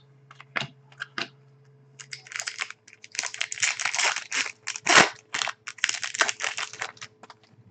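Shiny foil wrapper of a trading-card pack being torn open and crinkled by hand: a dense run of crackling from about two seconds in, loudest about five seconds in. It follows a few light clicks of cards being handled.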